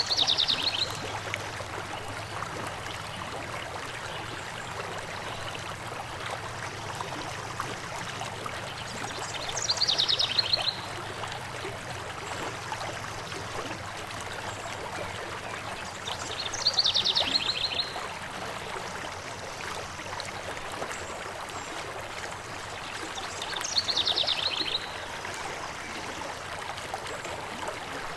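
Stream running steadily over rocks. A songbird sings a short, fast, descending trill about once every seven seconds, four times, each song louder than the water.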